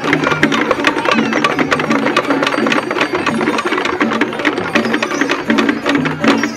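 Balinese gamelan percussion music: a fast, dense clatter of clashing cymbals over a repeating melody of low gong-chime notes.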